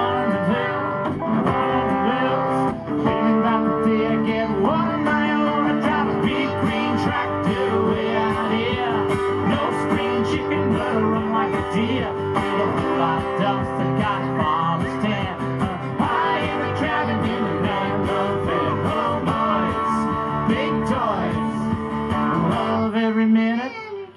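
Live country band playing an instrumental break: strummed acoustic guitars over electric bass, with held and bending melody notes on top. The music falls away sharply near the end.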